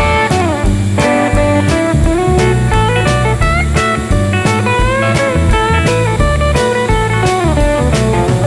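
Background blues music, a sliding electric guitar over bass and drums with a steady beat.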